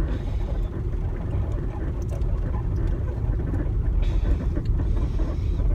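Steady low rumble of a car's engine and tyres, heard from inside the cabin as the car rolls slowly along.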